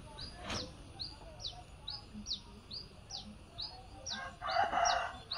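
A small bird calling a steady run of short, high, falling chirps, about two to three a second. A rushing noise starts up about four and a half seconds in.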